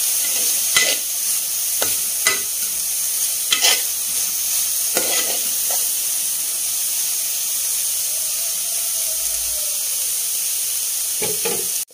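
Shredded cabbage thoran sizzling in a metal pot over a medium flame, with a steady hiss. Stirring scrapes and knocks against the pot several times in the first half.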